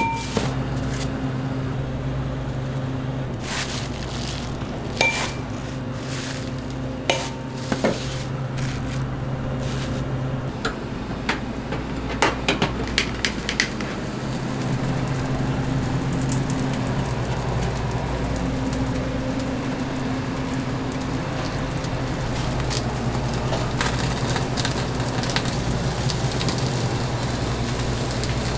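Thick 200 g hamburger patties sizzling as they cook, with scattered sharp metal clanks of kitchen utensils, a quick run of them about twelve seconds in.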